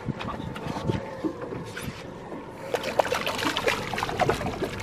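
A school mackerel being taken by the tail and landed on a boat: water trickling and splashing, then a quick run of sharp knocks and slaps from a little past the middle.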